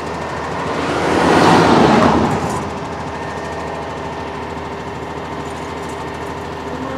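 A truck engine idling steadily, with a vehicle passing at highway speed in a rising and falling whoosh about one to two seconds in.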